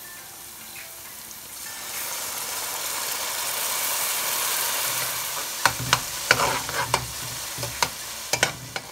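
Onion-and-spice masala frying in hot oil in a pan; about two seconds in, water goes in and the sizzle swells into a loud hiss. Over the last three seconds a spatula knocks and scrapes against the pan as the masala is stirred.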